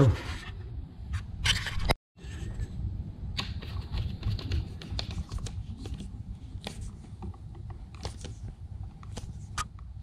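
Small scattered clicks and scrapes of a screwdriver and copper wire being worked on an electrical outlet's terminal screw, as the ground wire is attached.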